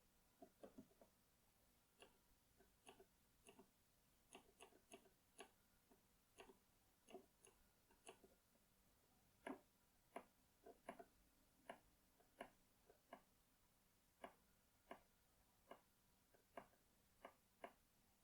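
Cherry mechanical key switches being pressed and released one after another, giving short, faint clicks at an irregular pace of about one or two a second, some in quick pairs.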